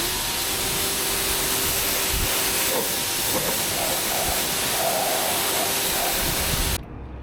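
A steady hiss of spray with a faint steady hum under it, cutting off abruptly near the end.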